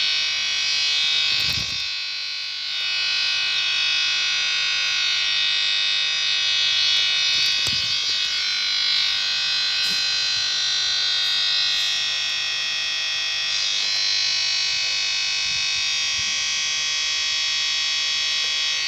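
Harsh, steady electronic buzz of a computer's sound stuck repeating during a blue-screen crash.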